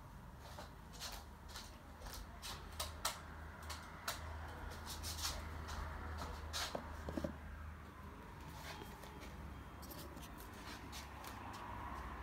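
Handling noise: irregular faint clicks and rustles from the spool and phone being moved by hand, thickest in the first half, over a low steady hum.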